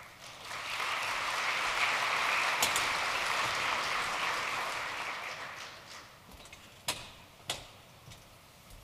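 Large audience applauding. The clapping builds within the first second, holds, then dies away about six seconds in, followed by two sharp clicks.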